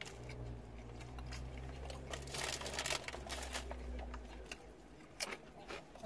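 Paper sandwich wrapper crinkling and rustling in the hand while a man chews, over a low hum that fades out about four and a half seconds in.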